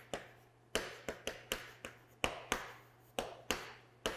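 Chalk writing on a chalkboard: about a dozen quick, irregular taps and short strokes of the chalk against the board.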